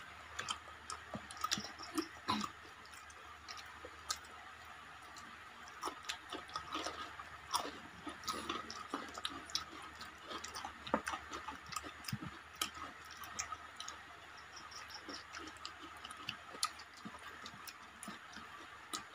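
Quiet eating sounds from people eating rice and curry with their hands: scattered soft chewing and small wet mouth clicks, at an irregular pace.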